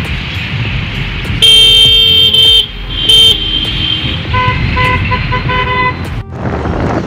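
A vehicle horn honking loud and close: a long blast of about a second, a second short blast, then a run of shorter, lower-pitched beeps. Steady wind noise on the microphone and a running scooter engine lie under it.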